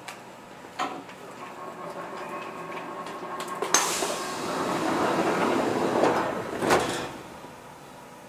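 Passenger doors of a Kintetsu 2430 series train closing at a station stop: a sharp click, a swelling rush of air from the pneumatic door engines, then a knock as the doors shut, over a steady tone.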